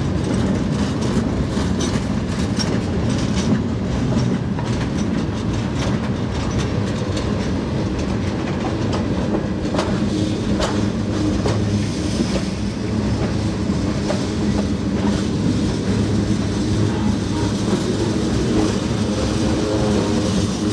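Freight train's loaded gondola cars rolling past under a steady low rumble, their wheels clicking over rail joints, with a few sharper clacks about halfway through.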